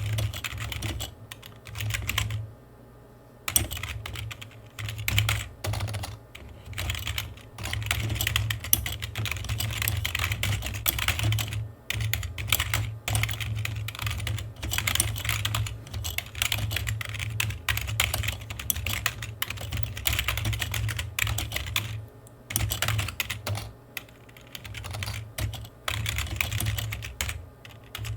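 Typing on a computer keyboard: a quick, dense run of key clicks broken by short pauses, the longest about three seconds in.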